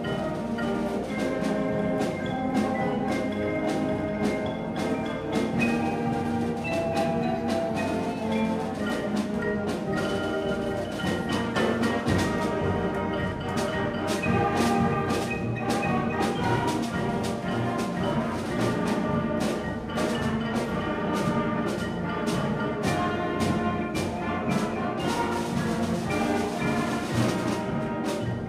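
Middle school concert band playing a march: massed wind instruments over a regular beat of percussion strokes.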